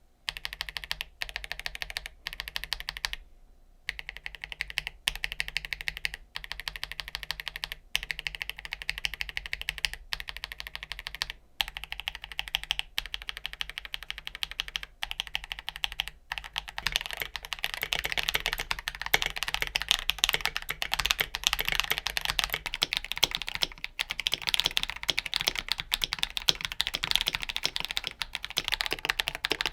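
Fast typing on a mechanical keyboard with Akko CS Silver linear switches and tall SA keycaps, a quick run of key clacks. In the first half the typing stops briefly several times; from about halfway it runs on without a break and grows denser.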